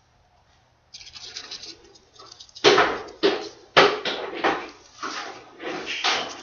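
Folded paper units rustling and crinkling as they are handled and pressed into a 3D origami body: faint rustling about a second in, then a run of loud, irregular crackles from about the middle on.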